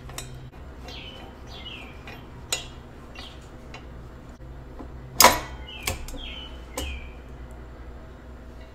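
A screwdriver worked against a bicycle's one-piece-crank bottom-bracket cone to unscrew it: a few sharp metal clicks and knocks, the loudest about five seconds in, with small birds chirping in the background.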